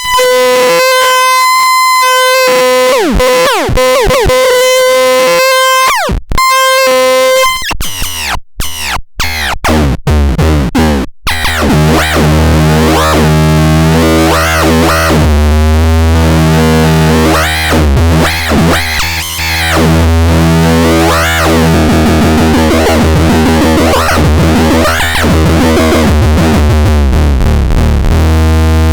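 Miniature electronic drum synthesizer making a loud, steady beeping tone cut by quick pitch sweeps, then choppy stuttering. About twelve seconds in it becomes a harsh, buzzy low drone overlaid with repeating swooping chirps.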